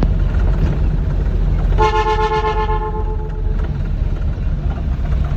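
A rice combine harvester's engine runs with a steady low rumble. About two seconds in, a vehicle horn sounds once, a single toot of about a second that fades away.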